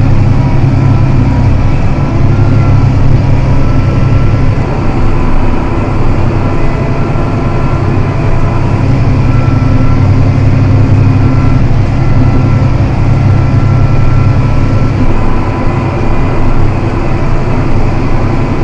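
John Deere 7280R tractor engine running steadily under load while pulling a plough: a constant low drone with faint steady whines above it.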